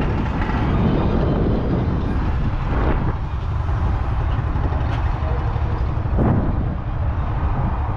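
Deutz D6806 tractor's 3.8-litre air-cooled four-cylinder diesel engine running steadily, with two short knocks about three and six seconds in.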